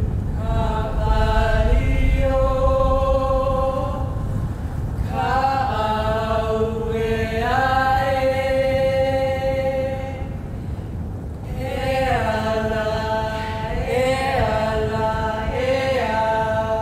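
Women's voices chanting together in long held notes that slide between pitches, in phrases with short breaks, over a steady low rumble.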